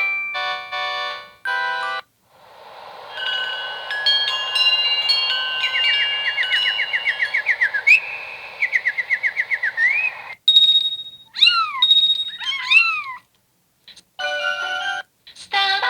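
Samsung Anycall SCH-S140 slide phone playing its built-in 64-voice polyphonic ringtones through its small speaker. A chord melody ends, then a sound-effect tone plays: a hiss with fast repeated chirps, followed by a few tones swooping up and down. Another melody begins near the end.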